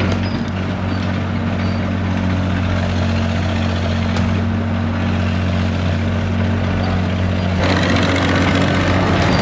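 Fiat-Allis 14B crawler dozer's diesel engine running steadily with a deep hum. Near the end it picks up, louder and rougher.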